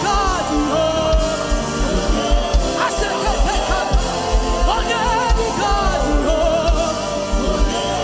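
Gospel worship song: a wavering sung melody over a band with a steady, pulsing bass beat.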